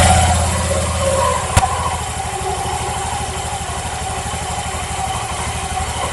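Honda Vario 125 eSP scooter's single-cylinder engine idling steadily, its crankshaft oil seal newly replaced; the seal had been blamed for a chirping hum at idle. A single sharp click about a second and a half in.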